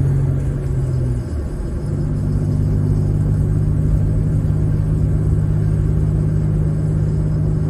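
Gasoline Ford Ranger pickup's engine running while driving, heard from inside the cab. About a second in, the engine note drops out briefly as the manual gearbox is shifted, then runs steady again.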